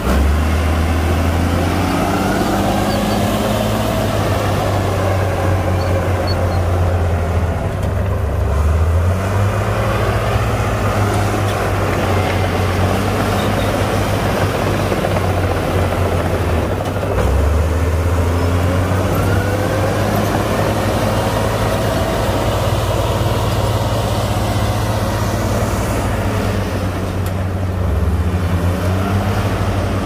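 Heavy diesel engines of a Komatsu D58P bulldozer and a dump truck running continuously, the low engine note shifting up and down every few seconds as the dozer pushes soil.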